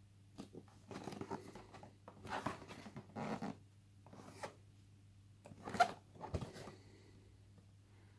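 Hands handling and turning a cardboard phone box, fingers rubbing and scraping on the cardboard in short irregular bursts, with a sharp tap about six seconds in. A faint steady hum lies underneath.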